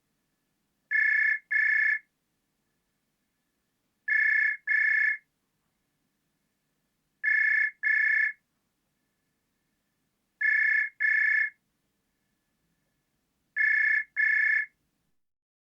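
Push-button telephone ringing in a repeating double ring: two short high-pitched rings about every three seconds, five pairs in all, with silence between them.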